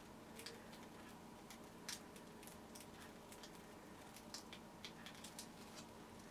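Very quiet handling sounds: faint soft clicks and crinkles from a plastic piping bag being squeezed as whipped cream is piped onto a custard pudding, over a low steady room hum.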